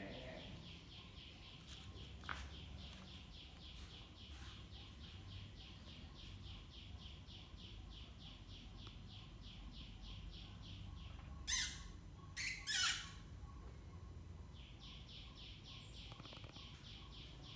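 Faint, rapid, evenly pulsed high-pitched chirping, several chirps a second, which breaks off past the middle and starts again near the end. Three short, loud, noisy bursts come about two-thirds of the way in.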